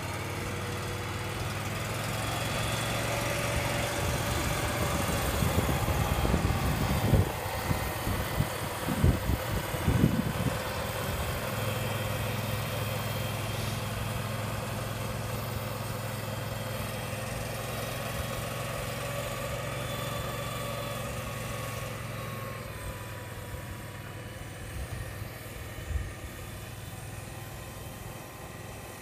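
Small engine of a turf utility sprayer vehicle running steadily as it drives slowly across the green, its pitch drifting a little. A few short low thuds break in about 7 to 10 seconds in.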